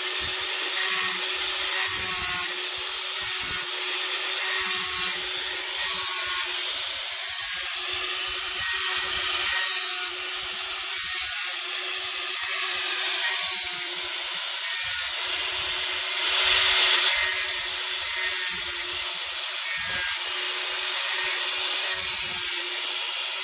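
Repeated abrasive rubbing strokes on wood, a little more than one a second, over a steady motor hum; the loudest stretch comes about two-thirds of the way in.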